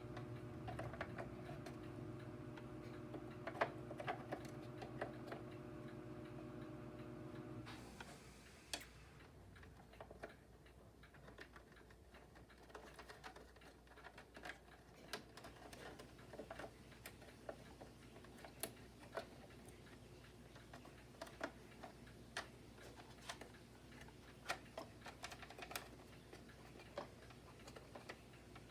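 Scattered light clicks and taps of parts and tools being handled while a Hoover Port-A-Power vacuum is taken apart. A low steady hum sounds underneath and cuts off about eight seconds in.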